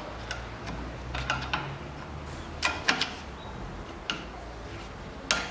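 Sharp metallic clicks and taps of a long flat pry bar working against a drive-belt tensioner clamped in a vise, prying the tensioner apart. The clicks are scattered, the loudest a pair about three seconds in, over a low steady hum.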